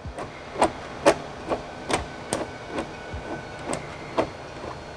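A hand lever rivet nut tool clicking at a rivet nut just set in the plastic underbody, a steady series of sharp clicks about two a second.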